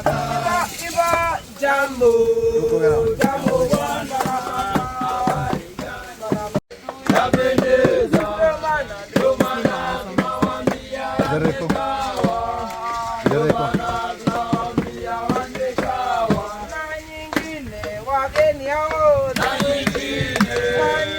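People singing a chant-like song, voices holding long notes; the sound breaks off for an instant about six and a half seconds in, then the singing goes on.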